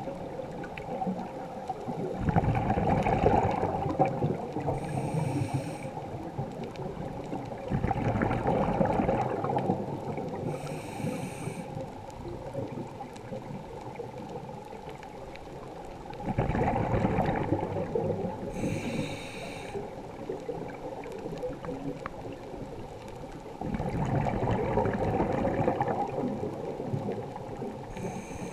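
Scuba diver breathing through a regulator underwater: a short hiss on each inhale, then a rush of exhaled bubbles lasting about two seconds, four breaths in all, several seconds apart.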